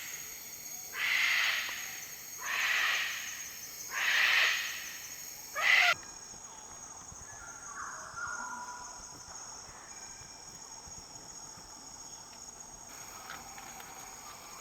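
Male magnificent riflebird at its display: three soft whooshing rustles about a second and a half apart, then one short sharp sound. Rainforest insects buzz steadily throughout.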